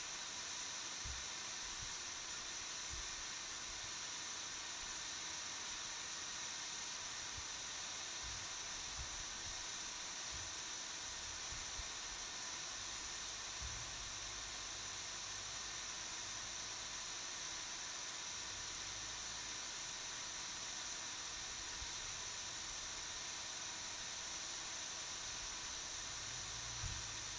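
Steady, even hiss with no change in level, and now and then faint low rumbles of wind on the microphone.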